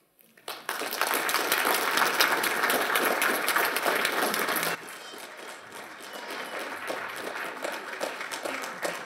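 Lecture-hall audience applauding, dense clapping that drops suddenly to a lower level about halfway through and carries on.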